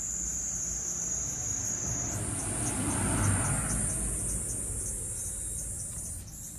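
A car passes on the road, its noise swelling to a peak about three seconds in and then fading away. Under it runs a steady high-pitched shrill whine that shifts pitch twice.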